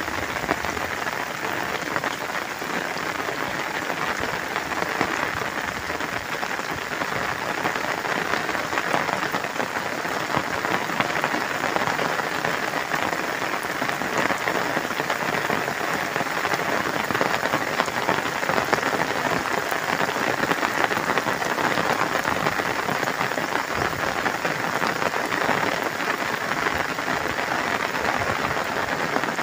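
Steady rain falling on muddy ground and standing puddles: an even, unbroken hiss.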